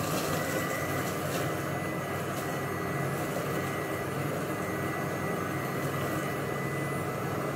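Silvercrest Monsieur Cuisine Connect food processor blending at speed 5, puréeing cooked leek and salmon: a steady motor and blade noise with a thin high whine over it.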